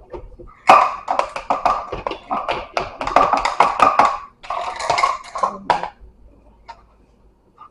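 Milk glugging as it is poured into a measuring cup for a cornbread mix: a fast run of gurgles lasting about five seconds, ending near the sixth second.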